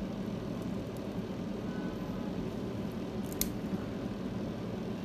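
Wire cutters snipping through an earphone cable next to its plug: one sharp snip about three and a half seconds in, with a fainter click just after, over a steady low background hum.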